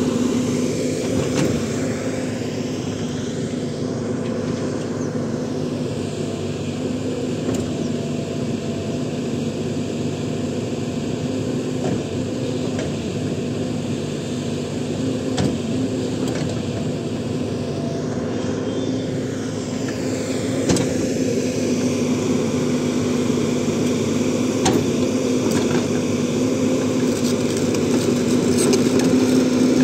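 JCB NXT 140 tracked excavator's diesel engine running steadily under work as the boom and bucket shape the slope, with a couple of light knocks about halfway through.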